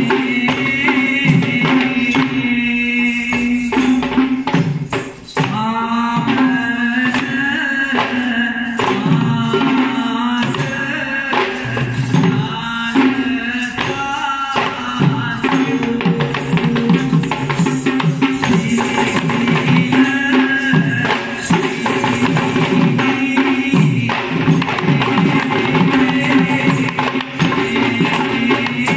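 Traditional Kandyan dance music: a row of geta bera drums playing fast, dense rhythms, with the jingle of small bells or rattles and a pitched melody over it.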